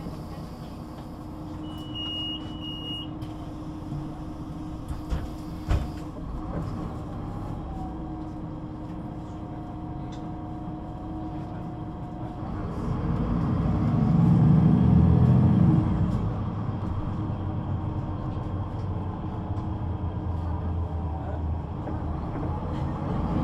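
Solaris Urbino 18 III articulated city bus running on its DAF diesel engine and Voith automatic gearbox: a steady hum at first, with a short beep about two seconds in and a few knocks a few seconds later. About halfway through the engine note swells as the bus pulls away and accelerates, then settles into a steady run.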